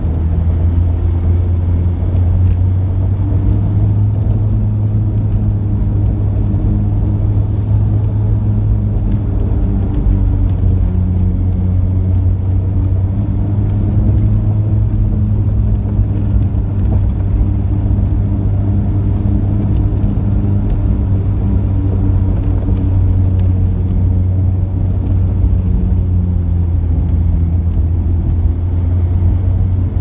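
Steady, deep drone of a vehicle's engine and tyres on the road, heard from inside the cabin while driving along.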